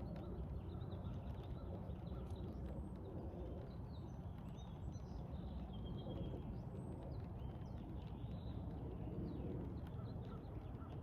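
Birds chirping and calling repeatedly over a steady outdoor background rumble.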